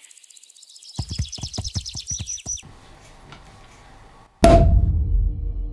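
Music with a fast run of drum-like hits, then about four and a half seconds in a loud sharp pop with a deep boom: a sparkling-wine cork coming out, laid over the music.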